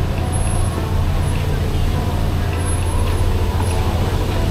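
Busy city street ambience: a steady low rumble of road traffic, with indistinct voices of people in the background.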